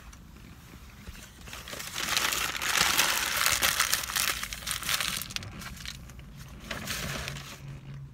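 Paper sandwich wrapper being crumpled in the hands. The dense crinkling builds about two seconds in, is loudest for the next three seconds or so, and returns as a shorter burst near the end.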